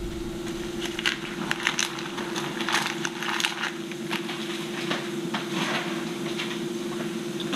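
Food frying in a pan, making irregular crackles and pops over a steady low hum.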